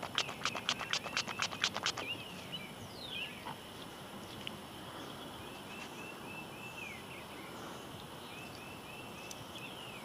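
Birds calling outdoors: a fast, even run of sharp notes about six a second for the first two seconds, then a few quick downslurred whistles and a short series of repeated arched notes.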